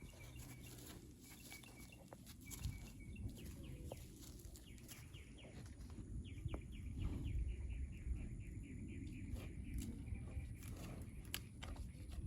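Songbirds singing: repeated short high chirps, with a quick run of rapid notes about halfway through, over a steady low rumble.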